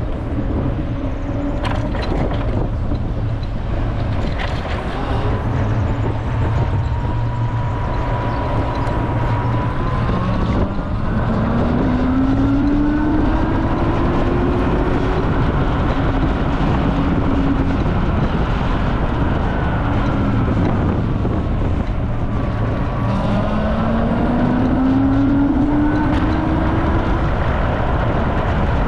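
Super Soco TC Max electric motorcycle on the move: steady wind and road noise, with the electric hub motor's whine rising in pitch twice as the bike accelerates, about a third of the way in and again past two-thirds.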